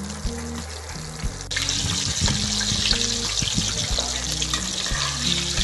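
Battered chicken leg pieces sizzling and bubbling as they deep-fry in hot oil, the sizzle stepping up suddenly about a second and a half in. Background music plays underneath.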